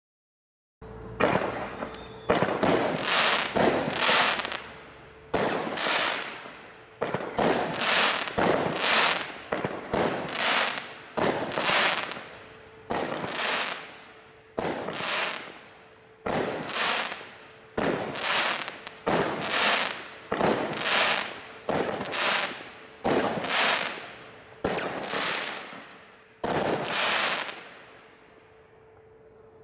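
Bright Star 1210 Hellfire 19-shot firework barrage (cake) firing, starting about a second in: a sharp bang about once a second, each followed by a hiss that dies away. These are brocade comets bursting with a report and time rain.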